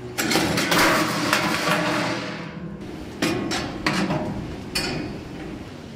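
Steel barbecue grill parts clattering and clanking as the inner charcoal pan assembly is fitted into the grill body: a long rattling clatter at first, then three sharper metal knocks, the last ringing briefly.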